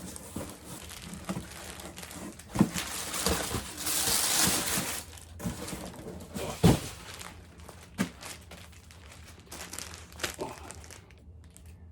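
Cardboard box and packaging being handled and unpacked: rustling and crinkling for a couple of seconds, with a few sharp knocks, two of them louder than the rest.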